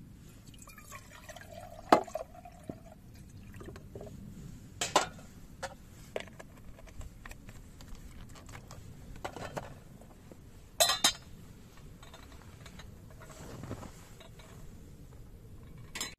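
Water poured from a plastic jug into an enamel coffee kettle at the start, followed by a few sharp clinks and knocks, the loudest about five and eleven seconds in.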